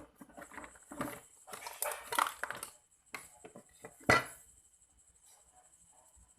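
Small tools being handled on a repair bench: scattered clicks and scrapes, then a sharp knock about four seconds in, after which it goes almost quiet.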